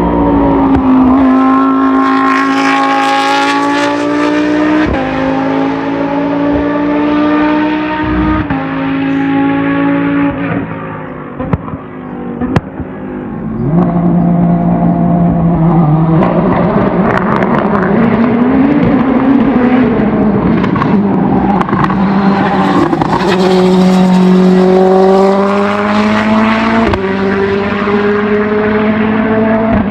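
Race car engine accelerating hard, its pitch climbing in each gear and dropping back at upshifts a few seconds apart. About halfway through it lifts off and goes quieter for a couple of seconds, with a few sharp pops, then pulls hard through the gears again.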